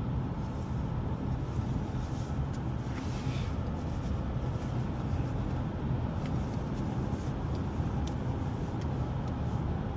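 Steady road noise inside a moving car's cabin: a low, even rumble of engine and tyres.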